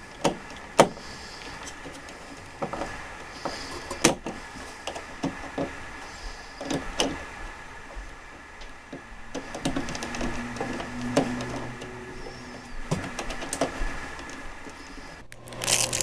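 Scattered clicks, taps and scrapes of a motion-sensor wall switch being handled and screwed into its wall box, over a faint steady high whine; the sound breaks off abruptly near the end.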